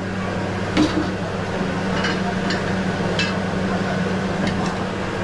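Steady humming background of a running stove and kitchen fan, with several short metallic clinks of a ladle against a wok.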